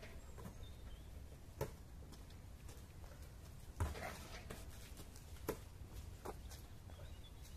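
A basketball thudding on an asphalt court and slapping into hands as it is rebounded and passed back out: a few single thuds, the loudest about four seconds in.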